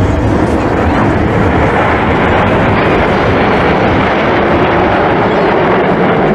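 Jet noise from a formation of BAE Hawk T1 jets flying past, loud and steady throughout.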